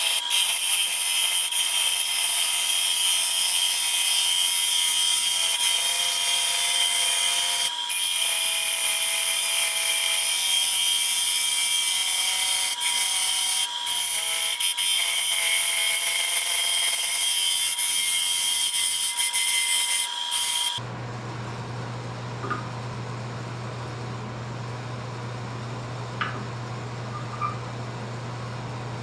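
Bowl gouge cutting the spinning wall of a large, very hard, dry pecan bowl on a wood lathe: a loud, steady hissing scrape with a high whine in it. About twenty seconds in the cut stops suddenly, leaving a low hum and a few light clicks.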